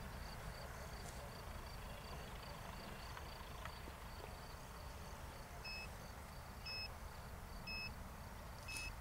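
Faint open-field ambience with a short high chirp repeating about three times a second, like an insect. From about halfway in, a short two-tone electronic beep sounds about once a second. No ducted-fan whine is heard, as the fan has been throttled down for the landing.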